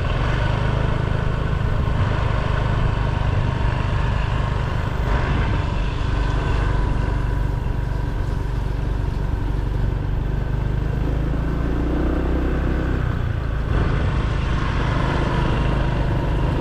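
Steady low rumble of riding an electric kick scooter along a paved road: tyre noise mixed with wind on the microphone.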